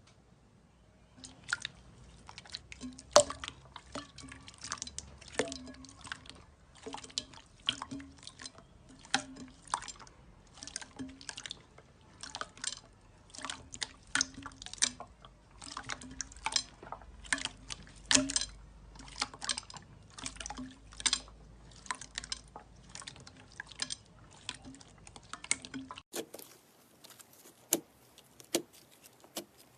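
Slime being worked by hand, making a steady run of wet, sticky clicks and squelches about one to two a second. Near the end there is a cut to a different take with sparser clicks.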